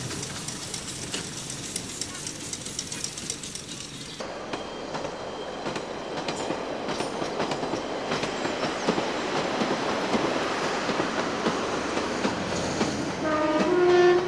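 A train running on the rails with a rolling clickety-clack, getting louder toward the end. A horn sounds briefly just before the end.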